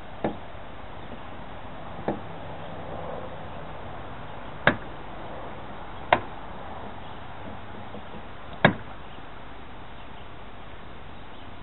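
Fuel filler door of a 2006 Toyota Tacoma being worked and pressed shut: five sharp knocks and clicks, a second or more apart, the loudest three in the middle.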